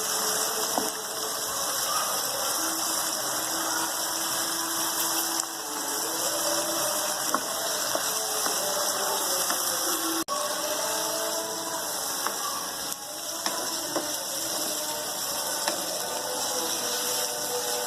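Chicken frying in spiced onion-tomato masala in a kadhai: a steady sizzling hiss with a few sharp clicks of a spoon against the pan, and a brief dropout about ten seconds in.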